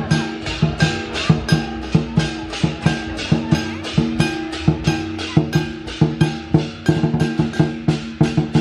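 Background music with a steady, quick percussive beat over pitched notes.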